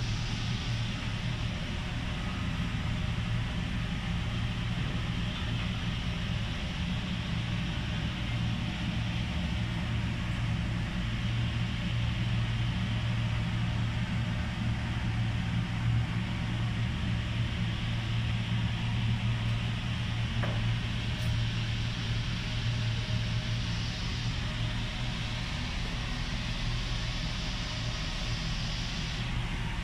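Steady mechanical hum with an even hiss of moving air, unchanging throughout, with a faint tick about twenty seconds in.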